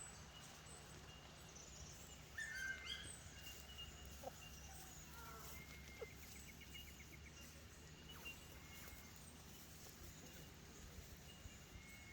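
Quiet outdoor ambience with faint, scattered chirps of small birds, including a short rapid trill about six seconds in.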